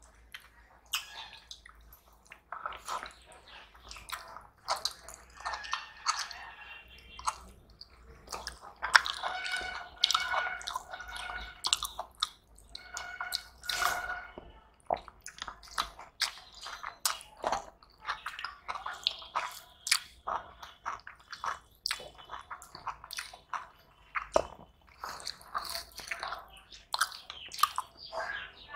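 Two people eating rice and curry by hand: chewing and mouth sounds, with the wet sounds of fingers mixing rice. These come as a dense, irregular run of short clicks.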